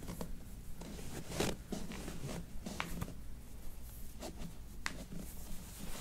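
Soft rubbing and shuffling of hands working a person's sock-covered feet and toes during a chiropractic foot adjustment, with a few faint, short clicks.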